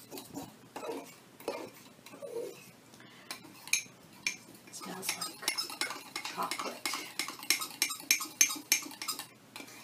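A metal spoon clinking and scraping against the inside of a ceramic mug while stirring thick cake batter, sparse at first, then a fast run of clinks from about halfway through.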